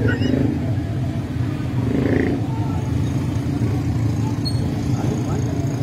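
Steady low rumble with faint scattered voices.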